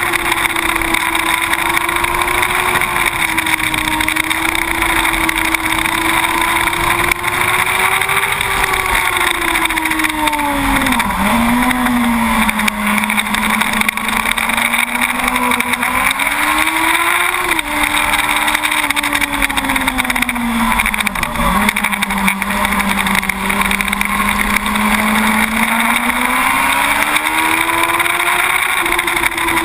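2006 Yamaha YZF-R1 SP's inline-four engine running hard on track, its pitch mostly steady but dropping sharply twice and climbing again, under heavy wind rush on the bike-mounted camera.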